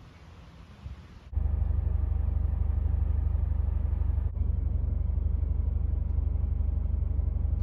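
Toyota 86 on the move: a loud, steady low rumble of engine and road noise. It cuts in suddenly about a second in and breaks off briefly partway through.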